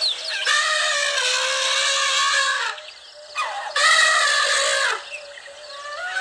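An animal calling in long, drawn-out cries of steady pitch: one lasting over two seconds, a shorter one about halfway, and another starting near the end.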